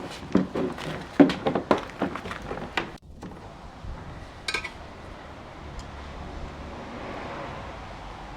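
Rapid clinks and knocks of tools and parts being worked on the Ryobi shredder for about three seconds. The sound then cuts off to a steady low background with a single click.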